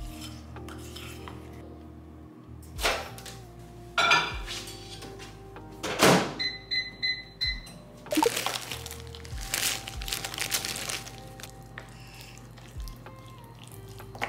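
Over lo-fi background music, a few knocks and thuds, then about four short high beeps from a microwave's keypad as its buttons are pressed, followed by rustling handling noise.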